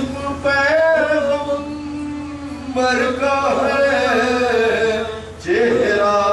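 A man chanting an Urdu salaam, a devotional elegiac poem, in long held melodic phrases with short breaks for breath. A steady low hum runs underneath.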